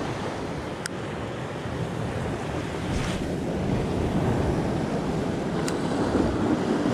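Rough storm surf breaking and washing over shoreline rocks, with strong wind buffeting the microphone: a steady rush of noise that swells a little about halfway through.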